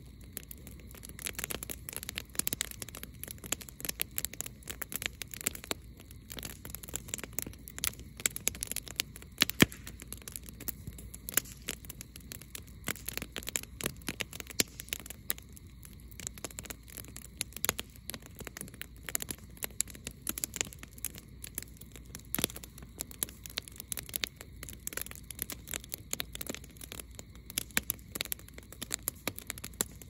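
Log campfire crackling loudly, with a dense, irregular stream of sharp pops and snaps; one pop about ten seconds in is the loudest.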